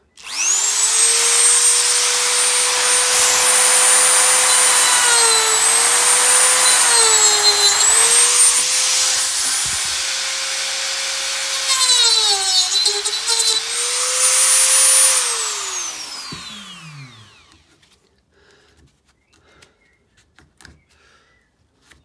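Dremel rotary tool with a cut-off disc spinning up to a high steady whine, its pitch dipping a few times under load as the disc cuts through the plastic latch tab of a type 2 charging plug. It is switched off about fifteen seconds in and winds down in falling pitch.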